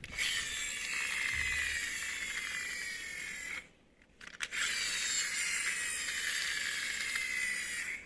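A small electric motor and gears whirring in two runs of about three and a half seconds, with a short pause and a couple of clicks between them. The whine drifts slowly down in pitch during each run, typical of an RC car's drive motor spinning its wheels.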